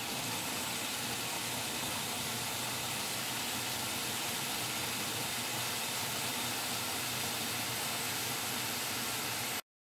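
Food processor running steadily with its chopping blade, roughly chopping cilantro: an even whirring hiss at a constant level that cuts off near the end.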